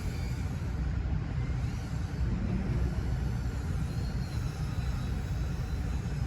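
Steady low rumble with the faint, wavering high-pitched whine of a BetaFPV Meteor75 Pro tiny-whoop drone's motors above it.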